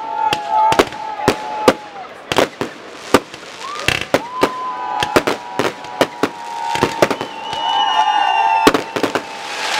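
Fireworks display: a rapid, irregular run of sharp bangs from bursting shells. From about four seconds in, several long whistling tones overlap with the bangs until near the end.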